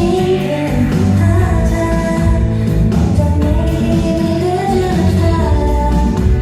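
K-pop song playing loudly: female singing over a steady beat.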